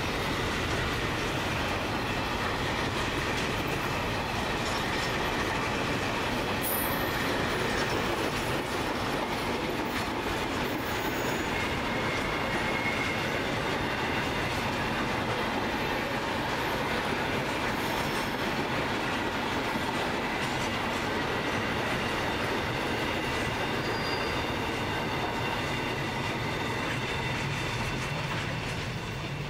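Container wagons of a broad gauge freight train rolling past close by: steady wheel-on-rail noise with clicking over the rail joints and thin high wheel squeals. The sound eases off near the end as the last wagon goes by.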